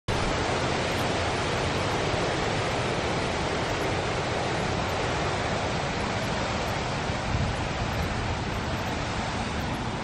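Water rushing steadily along a narrow irrigation channel, an even, unbroken hiss.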